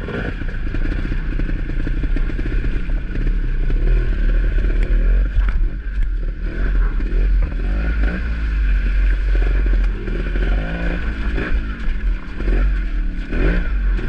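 Dirt bike engine running and revving unevenly, its pitch rising and falling as the bike is picked slowly up a rocky creek bed, with a few knocks over the rocks.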